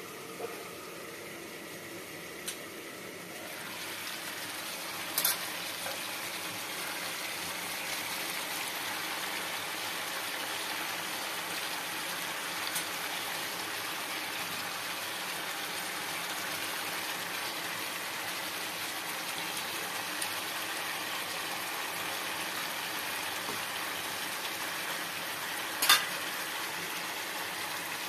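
Lamb ribs sizzling in a thick black-pepper sauce in a pan: a steady frying hiss that gets louder a few seconds in. A few sharp knocks of the spatula against the pan, the loudest near the end.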